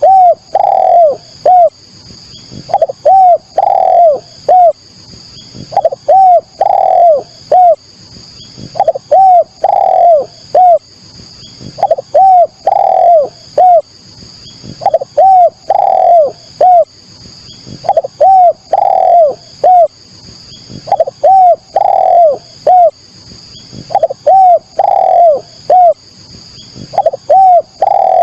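Spotted dove (derkuku, tekukur) cooing its song over and over. Each phrase is a few coos around one long, arched coo, and the phrase comes about once every three seconds.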